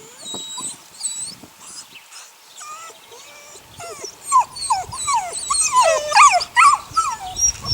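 Litter of eight-week-old puppies whining and yelping: faint high squeaks at first, then many overlapping cries that grow loud from about four seconds in.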